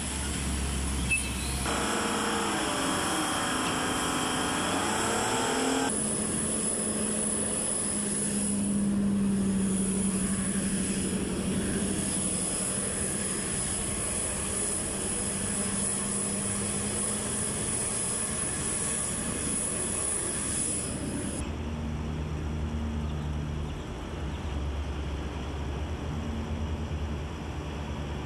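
Truck tractor engine running steadily as it tows a heavy multi-wheeled transporter. The sound shifts abruptly a few times, about 2, 6 and 21 seconds in.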